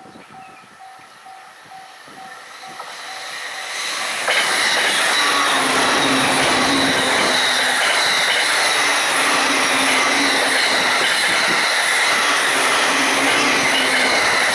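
Level-crossing bell ringing in a steady repeating pattern while a JR East Joban Line train approaches, growing louder. About four seconds in, the train passes at high speed: a loud, steady rush of wheels on rail that drowns out the bell and lasts almost to the end.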